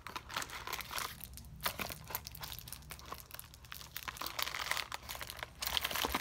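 Packaging being handled and opened: irregular crinkling and rustling of a purple box and its wrapping, with many small crackles.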